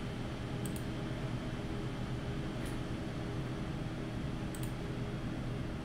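Steady low hum and fan hiss of a computer setup, with a few faint mouse clicks: a quick double click about a second in, then single clicks near the middle and later on.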